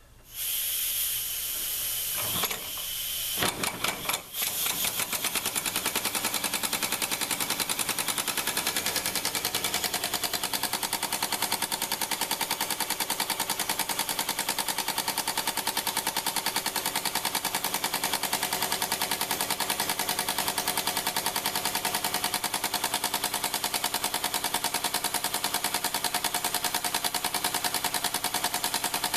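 Shop-built model steam engine running on compressed air: a hiss of air as the supply is opened, a few uneven strokes as it starts three to four seconds in, then a fast, steady clatter from its rocker-arm valve gear as it spins up and runs, belted to a small generator.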